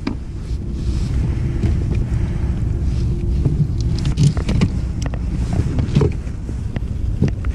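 Landing net, hooks and lure being handled while a bass is unhooked: scattered clicks and taps, the loudest about four and six seconds in, over a steady low rumble of wind on the microphone.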